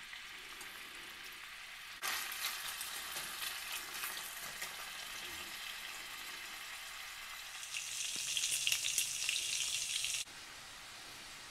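Sliced smoked sausage frying in oil in a stainless steel pot, a steady crackling sizzle. It gets louder about two seconds in, is loudest near the end as the slices brown, then cuts off suddenly.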